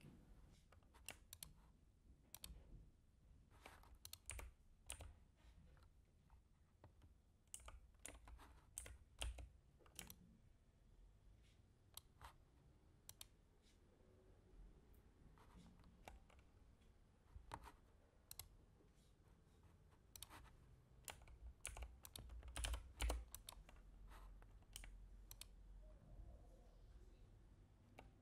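Faint computer keyboard typing and mouse clicks, coming irregularly in short runs.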